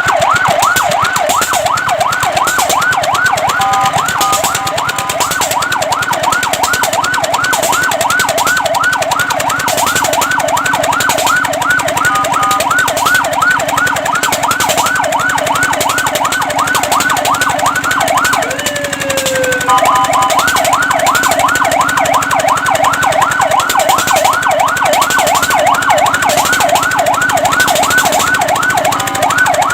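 Fire truck's electronic siren sounding a fast yelp, rising and falling about three to four times a second. A few times it breaks briefly into steady two-note tones, and once, about two-thirds of the way through, into a slower falling sweep.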